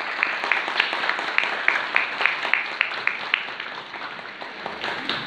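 An audience applauding, many separate hand claps over a general patter, dying away near the end.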